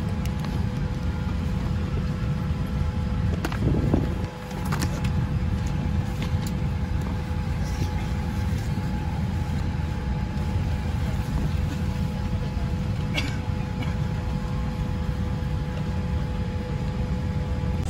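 Steady low rumble of cabin noise inside a Boeing 787-8 airliner, with a faint steady hum above it. Paper leaflets and a magazine rustle and click as they are handled, loudest about four seconds in.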